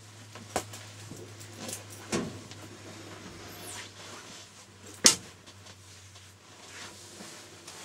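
Steady low hum of an EP20 electric locomotive's cab equipment while its control system powers up, with a few faint clicks and one sharp click about five seconds in.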